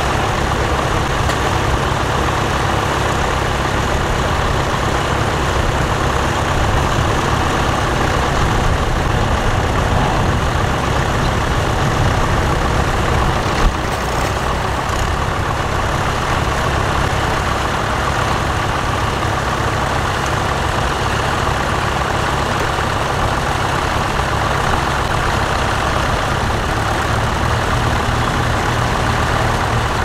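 Vintage tractor engine running steadily under load as it pulls a two-furrow mounted plough through the soil.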